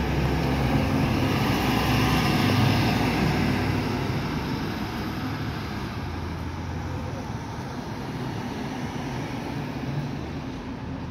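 A Sutphen Monarch fire engine's diesel drives past close by, rising to its loudest about two to three seconds in and then fading as it moves away. Engine and tyre noise from the following ambulance and traffic continues more quietly after it. No siren sounds.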